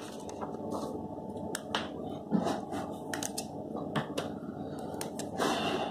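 Handling noise: scattered light clicks and taps, with a short scraping rub near the end, over a steady low hum.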